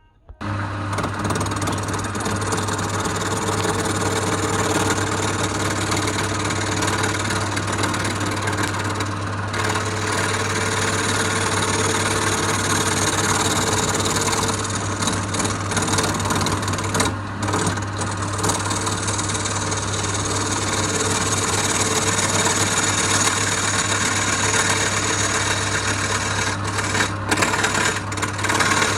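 Wood lathe running, its motor giving a steady low hum, while a turning tool cuts the spinning wood with a continuous rough scraping. The sound starts suddenly just after the beginning.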